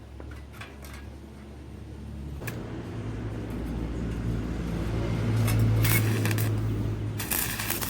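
Low steady electrical hum that changes about two and a half seconds in and grows louder, with short bursts of hissing, scraping noise near the end.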